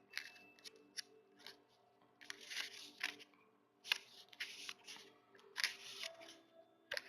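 Pages of a paperback guidebook being turned and flicked through: a run of short, crisp paper swishes and taps, over faint background music.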